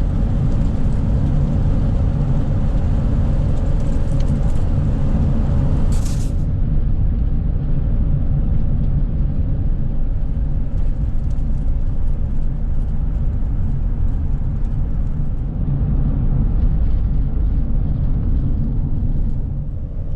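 Steady low road and engine rumble heard from inside a moving vehicle's cabin while driving. A brief sharp hiss cuts in about six seconds in.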